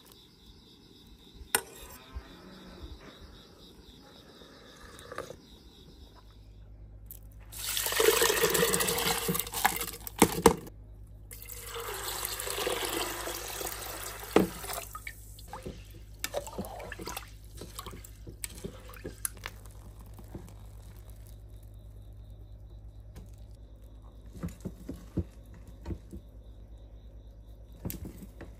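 Water pouring into a pot of rice and mung beans in two long pours a few seconds apart, followed by small clicks and taps of utensils. A low steady hum runs beneath from a few seconds in.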